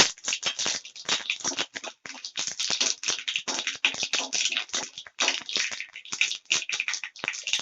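Mustard seeds spluttering in hot oil in a kadai, a dense, irregular crackle of sharp pops. This is the tempering step, and the popping shows the oil is hot enough.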